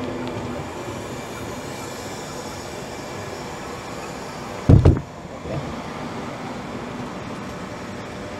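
Steady rumble of an InterCity 225 electric train (Class 91 locomotive with Mark 4 coaches) pulling into the station, broken about five seconds in by a loud, short low thump and a smaller one just after.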